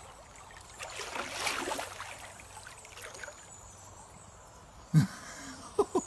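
Shallow river water trickling, with a swell of sloshing water about a second in, lasting about a second.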